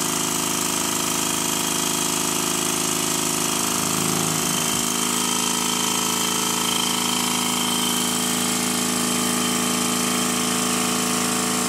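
Stuart No. 10V single-cylinder vertical model steam engine running fast on compressed air, a steady, even machine sound at constant speed. It runs smoothly, its tight spot at the bottom of the stroke cured by shimming the main bearings and levelling the crankshaft.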